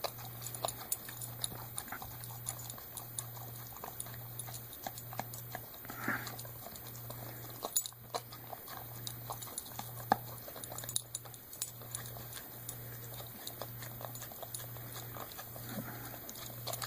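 Golden retriever eating out of metal cans: lapping and chewing with many small clicks and taps of the cans, over a low hum that pulses about once a second.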